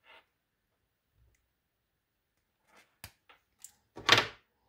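Wire insulation being stripped with a hand tool: a few sharp clicks about three seconds in, then a louder brief scrape about four seconds in.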